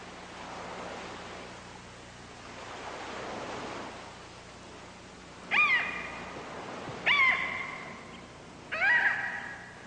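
Sea waves washing in slow swells, then three seagull cries about a second and a half apart, each rising sharply and then holding on one note. The gull cries are the loudest sounds.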